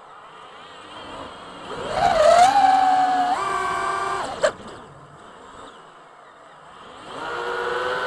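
FPV quadcopter's motors whining as the throttle is punched: the pitch climbs about two seconds in, steps higher, and falls away around the middle after a short click. The whine then rises again near the end.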